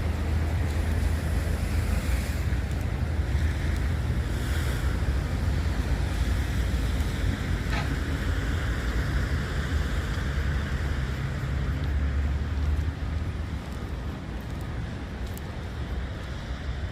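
Rainy outdoor street ambience: a steady low rumble with a hiss over it, easing somewhat about thirteen seconds in.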